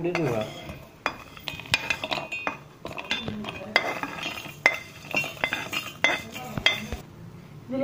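Roasted peanuts, sesame seeds and cashews tipped from a kadai into a steel mixer-grinder jar: an irregular run of metal clinks and knocks, some ringing briefly, as the pan meets the jar and the nuts drop onto the steel.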